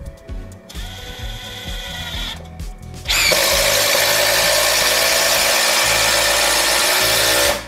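Bosch GDX 18V-200 cordless impact wrench driving a long wood screw into hardwood. The motor whines briefly about a second in. From about three seconds in, the impact mechanism hammers loudly under load, then stops abruptly just before the end as the screw goes home.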